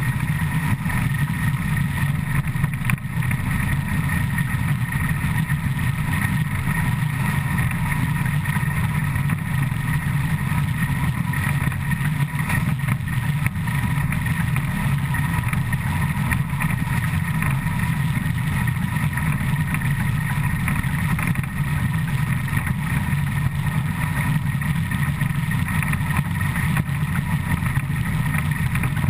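Steady loud rumble and rush of a Škoda ČSD class 475.1 steam locomotive's driving wheels and running gear at speed, heard close beside the wheels.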